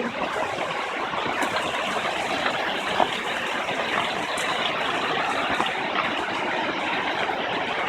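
Steady rush of falling water from a waterfall or fast stream, an even hiss with a few faint ticks over it.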